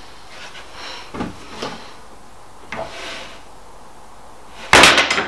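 Long parallel-jaw bar clamps being worked loose from a glued-up wood lamination: a few soft knocks and scrapes of wood and metal, then one much louder clack about half a second long near the end.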